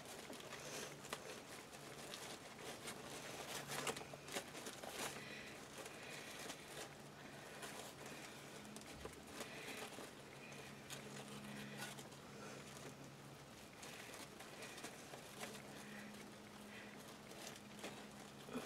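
Faint rustling and crinkling of wired ribbon and deco mesh being handled and folded into bow loops, with scattered soft crackles.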